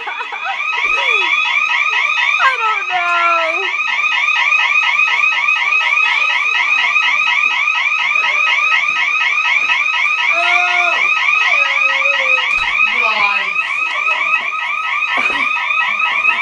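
House alarm system sounding continuously: a loud electronic tone warbling rapidly and evenly, with a few brief voices over it.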